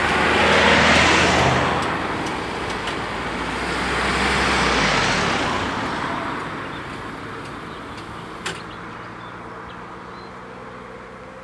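Motor vehicles passing close by, the noise swelling twice about four seconds apart and then fading away, with a sharp click about eight and a half seconds in.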